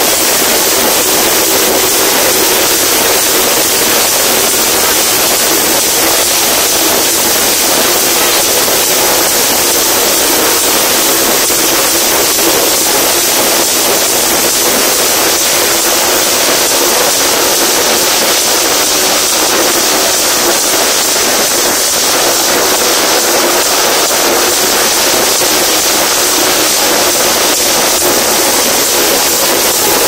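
Motorcycle engines held at high revs as riders circle inside a steel-mesh globe of death, a loud, steady engine noise.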